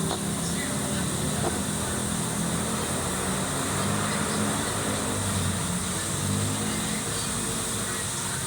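Concrete mixer's small engine running steadily.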